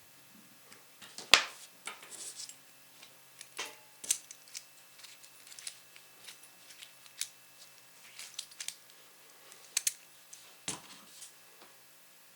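Small metal clicks and scrapes of a small pin cam lock's cam, cam shifter and cam screw being screwed together and worked. The sharpest click comes about a second and a half in, and lighter clicks and scrapes are scattered through the rest.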